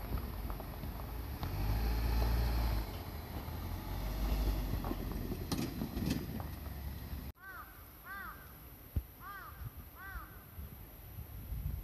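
A low vehicle rumble for the first several seconds, then, after an abrupt cut, a crow cawing four times over quiet background.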